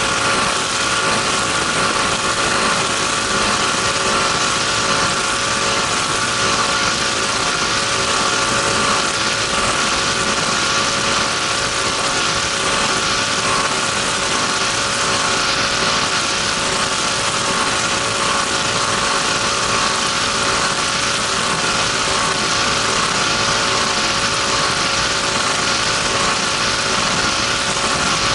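Race powerboat's engine running steadily at speed, heard from the open cockpit over a constant rush of wind and water. The pitch holds level throughout.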